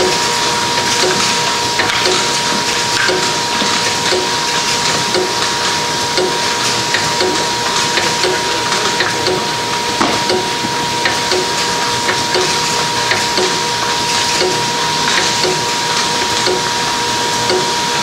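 Intermittent lid plugging machine running: a steady hiss with a constant whine, and a regular light tick about twice a second.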